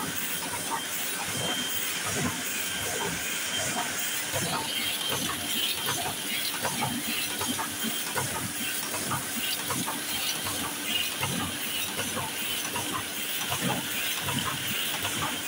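A Heidelberg sheet-fed offset press running while feeding 350 gsm card. It makes a steady hiss of air under a dense, rapid mechanical clatter of clicks and knocks.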